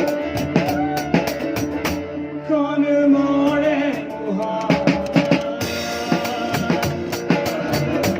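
A band playing a song: a drum kit keeps a steady beat under sustained pitched instruments. The drums ease off briefly about two seconds in while a melodic line carries on, then come back in.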